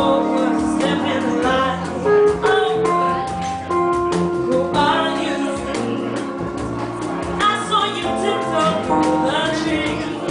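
Live band music between sung lines: piano, electric bass and cajon playing on.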